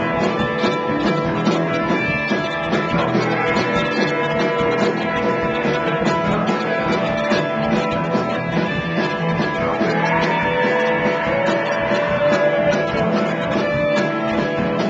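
Live rock band playing loud and steady, with guitar over a drum kit, picked up on a small camcorder's built-in microphone.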